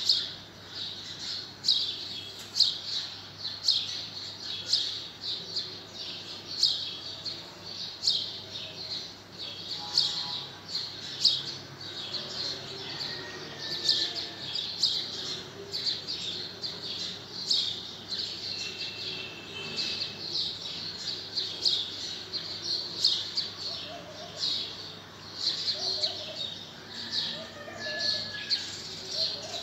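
Small birds chirping, a quick, irregular run of short high chirps about two a second, with a few fainter longer whistled notes.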